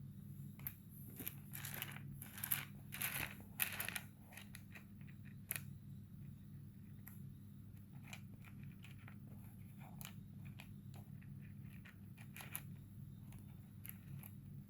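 Pieces of rough opal being handled: irregular small clicks and crunchy rustles, heaviest in the first four seconds and then sparser, over a steady low electrical hum.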